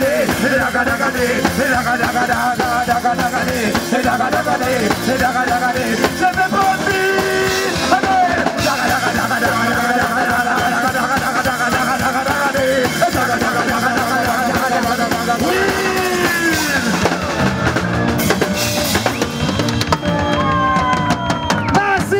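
Live roots reggae band playing: a drum kit keeps a steady beat under guitar, with male vocalists singing into microphones over it.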